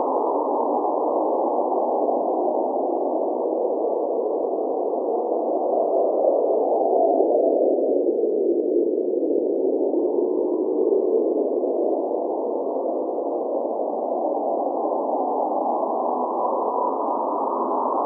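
Cold blizzard wind blowing steadily, a dull, muffled rush whose pitch sinks about halfway through and rises again.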